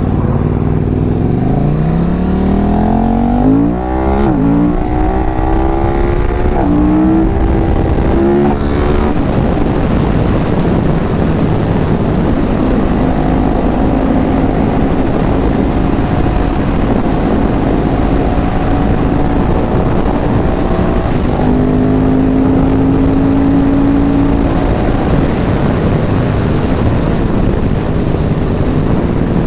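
Sport motorcycle engine accelerating hard through the gears, its pitch climbing and dropping at each upshift about four, seven and eight and a half seconds in, then holding a steady cruise under heavy wind rush.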